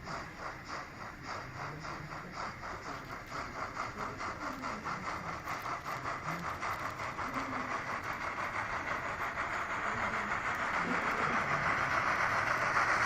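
Model T20 steam locomotive's LeoSoundlab sound decoder playing steam exhaust chuffs, an even beat of about four a second that grows steadily louder.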